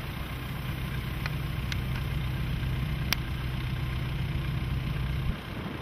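A vehicle engine idling with a steady low hum that cuts off suddenly about five seconds in, over a wash of wind noise, with a few faint ticks.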